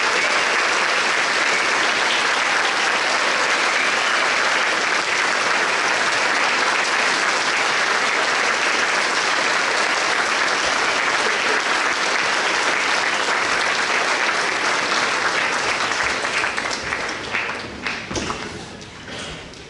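Audience applauding steadily, then thinning out about sixteen seconds in and dying away to a few last scattered claps near the end.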